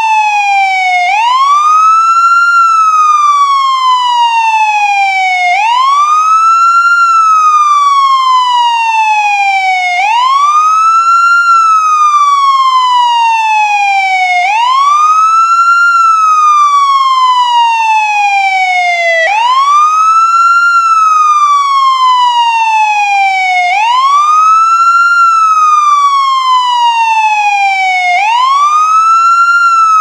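Police siren on its wail tone: the pitch sweeps up quickly, then slides slowly back down, over and over, about every four and a half seconds.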